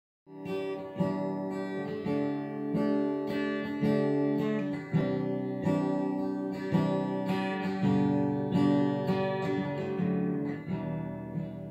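Intro music played on acoustic guitar: plucked and strummed chords, a new one roughly every second.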